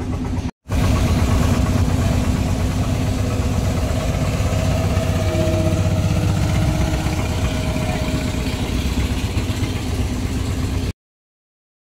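Wooden fishing boat's engine running steadily with a low, even note. It drops out for an instant about half a second in and cuts off abruptly about a second before the end.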